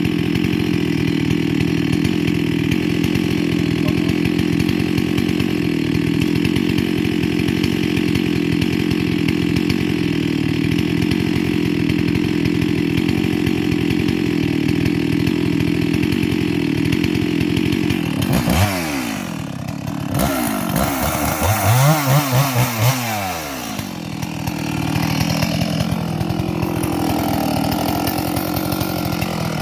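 Chainsaw running steadily at high revs. About two-thirds of the way in the revs drop, then rise and fall a few times before it settles back into a steady run.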